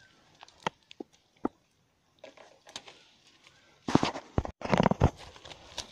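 Handling noise among dry twigs and leaves: a few scattered light clicks, then a cluster of sharp knocks and crackles from about four seconds in.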